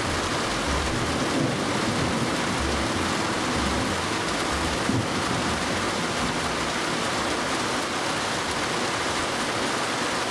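Steady rain falling, an even hiss, with irregular low rumbling underneath.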